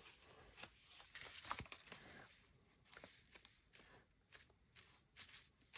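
Near silence: room tone with a few faint, scattered rustles and light taps.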